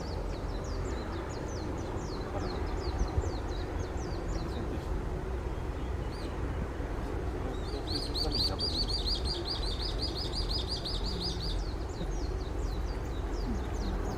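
Small birds calling: series of short, high, falling notes, and a little before the middle a rapid, even trill that lasts about four seconds. A steady low rumble sits underneath.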